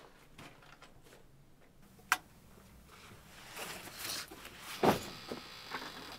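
A studio door's latch clicks once, sharply, about two seconds in, followed by rustling and a soft knock near the end as someone moves about in a small room.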